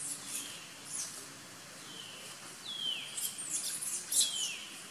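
High-pitched animal calls: short chirps and two squeaks sliding downward in pitch, busiest and loudest in the second half, over a steady outdoor hiss.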